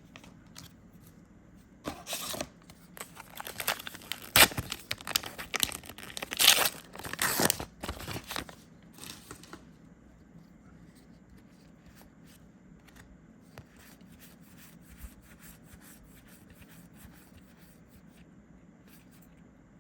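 Foil wrapper of a Star Wars Unlimited booster pack being torn open and crinkled, a run of ripping and crackling bursts over several seconds, loudest about four and six seconds in. After that only faint light ticks, from the cards being handled.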